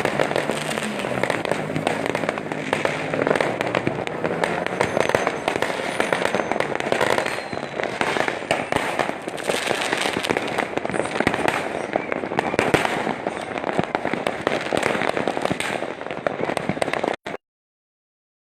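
Dense, continuous popping and crackling of many fireworks and firecrackers going off at once. It cuts off suddenly to silence near the end.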